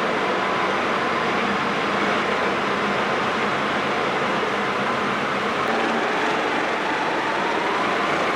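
Steady running machinery noise, like an engine running at a constant speed, with faint steady hums and no change in level.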